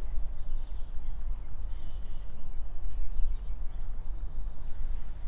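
Steady low outdoor rumble, with a few faint, high bird chirps about one and a half to two and a half seconds in.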